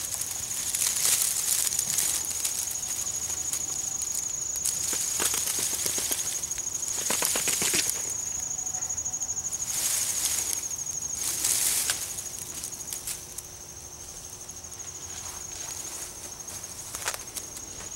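An insect trilling steadily on one high note, the trill dropping slightly lower and quieter after about 13 s. Under it is a rustling noise that swells and fades several times.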